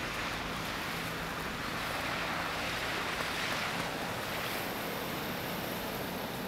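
Steady rushing wind noise that cuts in abruptly and swells for a while in the middle.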